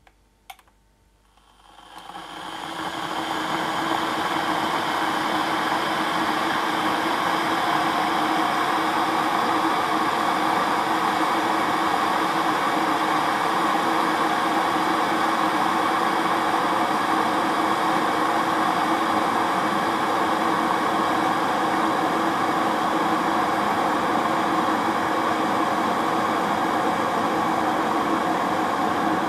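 A single click, then a kettle's water boiling: a rushing hiss that builds over the first few seconds and then holds steady.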